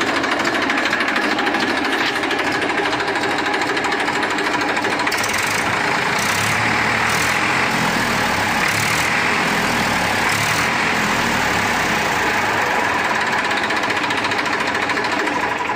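Massey Ferguson 241 DI tractor's three-cylinder 2500 cc Simpson diesel engine running steadily. It has a crisp, strong sound, which the seller takes as the sign of an engine in excellent condition.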